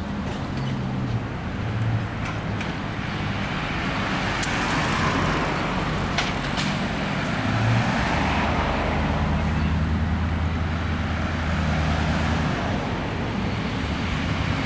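Road traffic passing on a busy parkway, cars swelling past one after another over a steady low engine hum. A few light clicks are heard in the first half.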